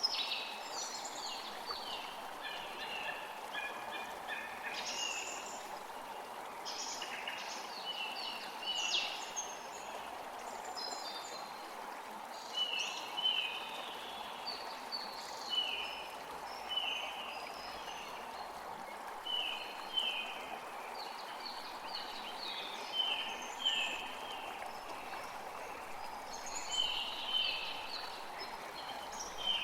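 Forest birds singing and chirping, many short repeated notes, some sliding downward, over the steady rush of a creek.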